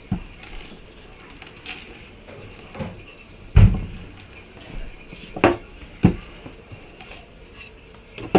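Wooden rolling pin rolled over a slab of air-dry clay on a wooden board, with several scattered wooden knocks; the loudest is a low thud about halfway through.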